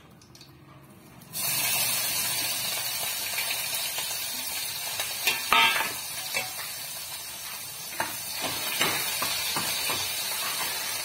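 Green chillies hitting hot oil in a pan, bursting into a loud sizzle about a second in and sizzling steadily, with a few clinks of a spoon against the pan.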